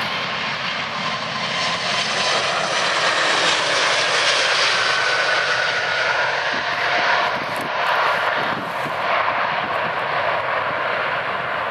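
Four-engine jet airliner, an Airbus A380, running its engines as it passes. It makes a loud, steady jet noise with a faint whine that swells to its loudest around the middle and eases slightly near the end.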